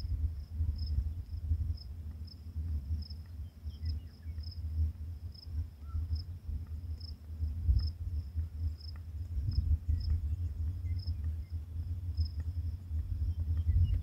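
Crickets chirping, a thin high chirp repeating about twice a second, over a low fluctuating rumble.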